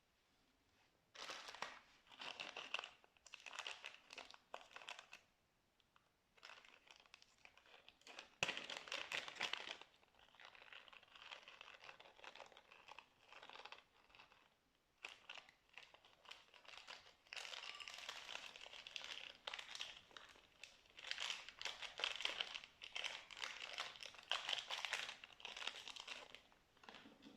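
Slime being squeezed and stretched by hand, giving sticky crackling and popping in repeated bursts with short pauses between them.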